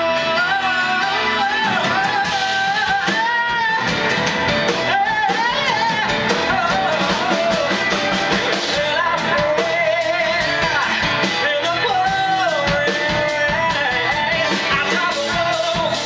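A solo singer performing a rock song live, backed by a band with electric guitar and drums.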